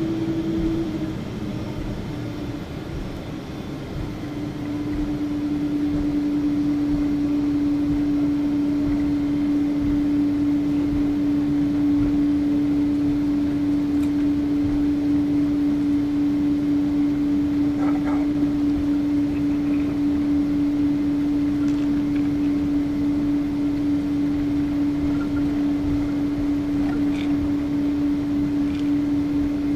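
Jet airliner heard from inside the cabin: steady engine and cabin noise with a constant hum tone. It eases off for a few seconds, then swells back up about four seconds in and holds steady.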